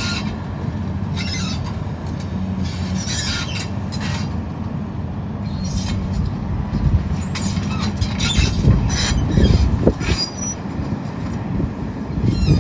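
XCMG 210 excavator's Cummins diesel engine running steadily under hydraulic load, with intermittent scraping, cracking and squealing of branches as a scrub oak tree is pushed into a dump truck bed. The scraping and cracking grow louder and more frequent in the second half.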